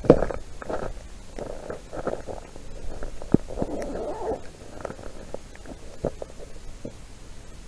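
Rubber boots crunching over snow-covered ice in a few heavy steps, then softer scuffing, rustling and a few small knocks as the person kneels at an ice-fishing hole.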